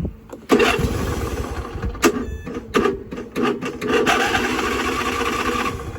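Electric starter cranking a 26 hp Briggs & Stratton V-twin engine on a Cub Cadet riding mower for about five seconds, stopping just before the end, without the engine catching: it needs choke to start.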